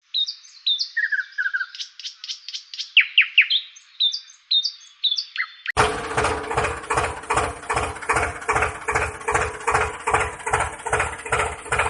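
Birds chirping in quick high calls for the first half. Then, about halfway through, a steady rhythmic sound takes over, about three beats a second with a held tone underneath.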